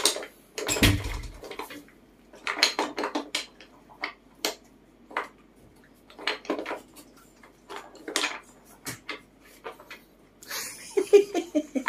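Wooden blocks clattering and knocking in a wooden puzzle box as a monkey handles them: irregular clusters of sharp clicks with short pauses between.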